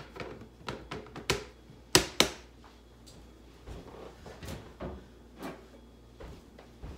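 Kitchen handling noises: a string of sharp knocks and taps of things being moved and set down, the loudest two close together about two seconds in, then fainter scattered knocks.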